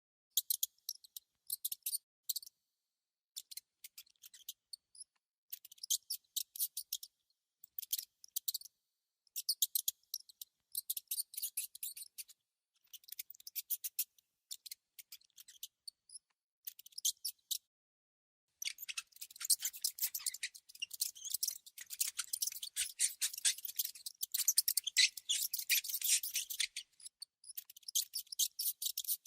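A mouse making bursts of rapid, high-pitched clicking chatter, in short runs of about a second with pauses between them, then a longer, denser run about two-thirds of the way in.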